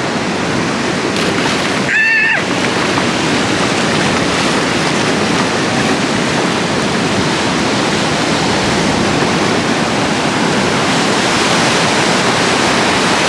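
Ocean surf breaking and rushing, a steady loud wash of noise, with a brief high-pitched call about two seconds in.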